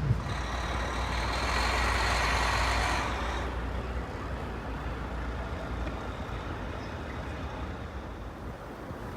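A large vehicle rumbling, with a loud hiss for about the first three seconds that then fades to a quieter, steady background noise.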